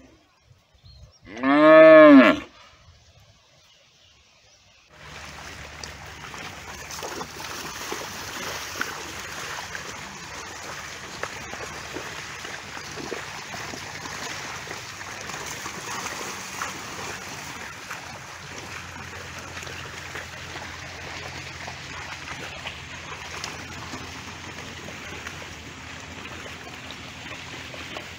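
A water buffalo gives one loud moo about a second and a half in, lasting about a second, its pitch rising and then falling. From about five seconds in, a steady rushing noise with a low hum underneath fills the rest.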